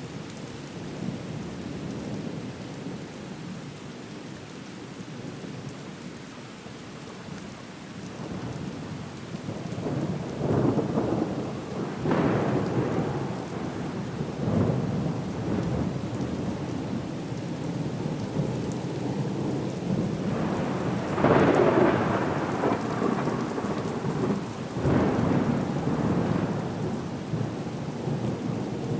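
Storm soundscape: a steady hiss of rain with rolling surges of thunder that build from about ten seconds in, the loudest around twenty-one seconds in.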